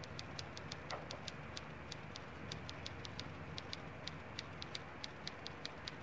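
Typewriter sound effect: a fast, even run of light key clicks, about five a second, played faintly.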